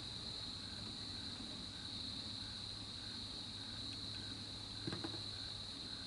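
Steady high-pitched insect chorus of crickets trilling, with a fainter chirp repeating about every half second and a brief faint knock about five seconds in.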